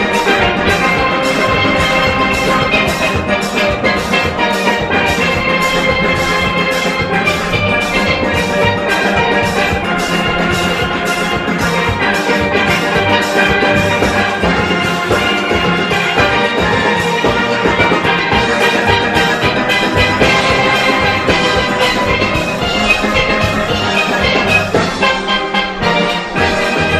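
A large steel orchestra playing live: many steelpans carrying a bright, busy melody over drums and percussion keeping a steady beat.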